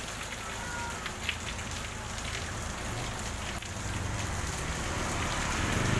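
Steady heavy rain pattering on a wet road. Over the last couple of seconds a passing vehicle's engine and tyres on the wet road grow louder beneath it.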